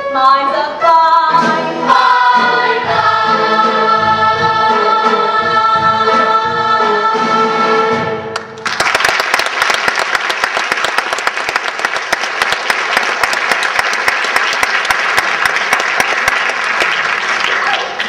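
The cast sings in chorus with the pit orchestra and ends the number on a long held final chord. About halfway through, the audience breaks into loud, steady applause.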